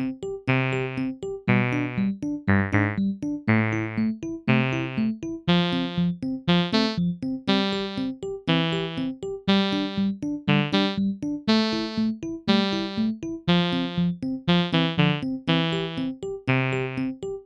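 Background music: a synthesizer keyboard tune of short, struck electric-piano-like chords in a steady rhythm.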